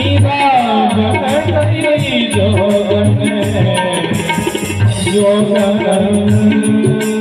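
Instrumental passage of a Hindi devotional song: a Roland keyboard plays a melody with gliding notes over tabla. Under it runs a steady beat of low thumps about twice a second, with fast shaker-like ticks on top.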